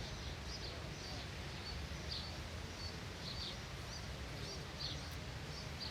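Faint bird chirps, short high notes about every half second to a second, over a steady low background rumble.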